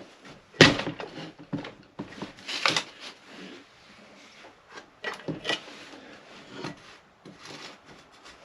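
Sharp knocks and scraping of a tool on a 1974 Yamaha DT250A's engine cases as a side cover is pried loose. The loudest knock comes a bit over half a second in, and a few more knocks and scrapes follow.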